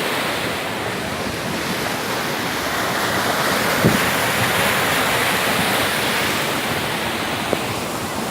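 Waterfall pouring steadily into a pool, a continuous rush of falling water with one or two brief knocks.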